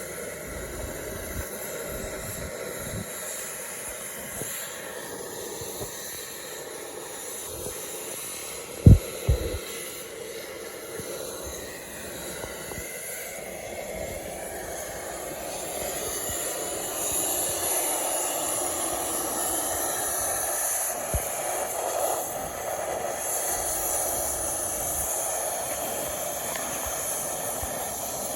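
Heavy equipment running steadily while a sawmill part is lifted, its noise getting louder past the middle, with one sharp loud knock about nine seconds in.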